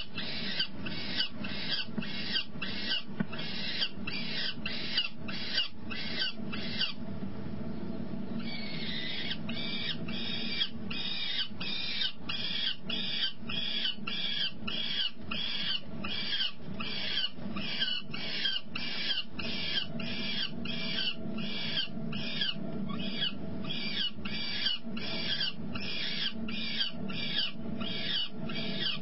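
Peregrine falcon calls: short, high-pitched cries repeated about twice a second without letup, with a brief pause about seven seconds in, over a steady low hum.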